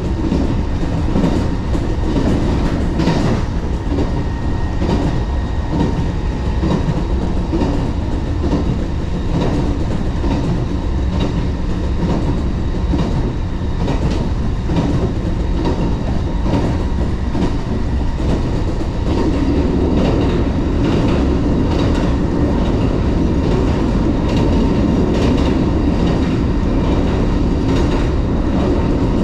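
JR 381 series electric train running at speed, heard inside the car near the door: a steady rumble of wheels on rail with frequent clickety-clack of rail joints. The rumble grows a little louder about two-thirds of the way through.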